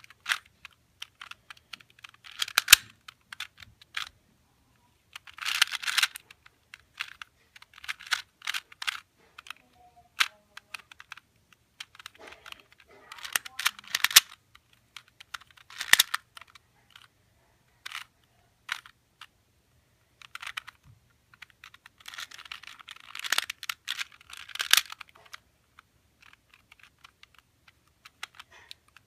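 2x2 Rubik's cube being turned by hand: irregular plastic clicks and clacks of the layers snapping round, in quick flurries with short pauses between.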